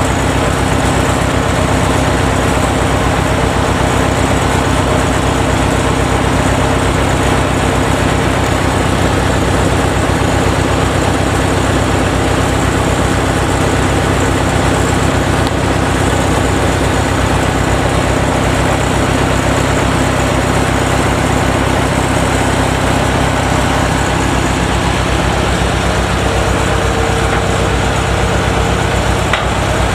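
Kubota DC-93 combine harvester's diesel engine running steadily.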